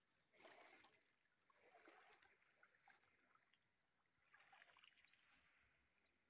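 Faint water sloshing, in three soft swells, as a person wades and moves about in a shallow river; otherwise near silence.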